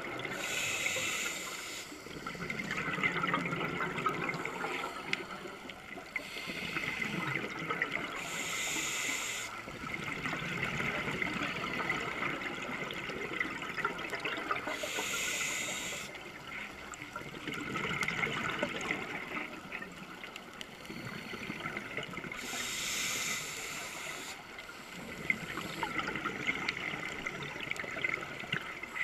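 Scuba diver breathing through a regulator underwater: about four slow breaths, each a short hissing inhale followed by a long bubbling exhale.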